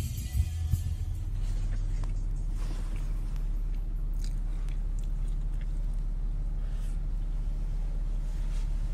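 Faint chewing and small clicks of a plastic fork against a plastic takeout container, over the steady low hum of a car's cabin.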